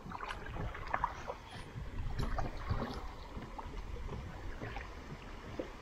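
Kayak paddle strokes: the blades dip and splash in river water, with dripping between strokes, the splashes thickest in the first few seconds. Under it runs a steady low rumble of moving water and wind.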